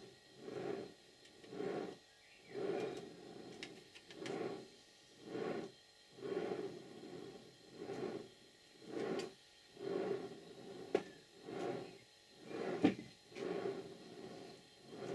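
The cylinders and motion of a 5-inch gauge Stirling Single model steam locomotive being turned over by hand, giving a soft, regular swish about once a second. A couple of sharp clicks come near the end.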